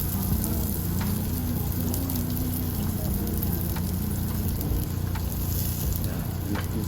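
Jeju black pork sizzling and frying on a barbecue grill, a steady crackling hiss.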